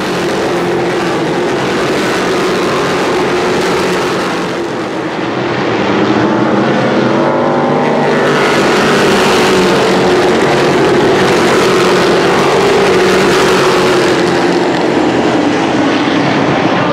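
A pack of stock cars running hard together, many engines overlapping into one dense, loud drone with pitches bending as cars accelerate. It grows louder about five seconds in as the field comes past.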